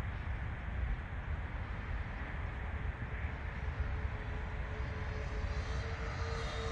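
Twin electric motors and propellers of a Flightline P-38L Lightning 1600mm RC model plane flying at a distance: a steady, faint drone, with a steady tone growing in about five seconds in as the plane comes closer.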